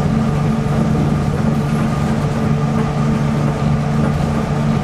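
Running noise inside a Toei 300-series car of the Nippori-Toneri Liner, a rubber-tyred automated guideway train, cruising between stations: a steady drone with a constant motor hum of several held tones.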